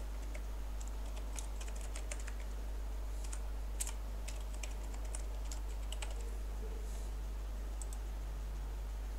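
Computer keyboard keys being typed in quick, irregular strokes as a user name and password are entered; the typing thins out after about six seconds, with a few last keystrokes near the end. A steady low hum runs underneath.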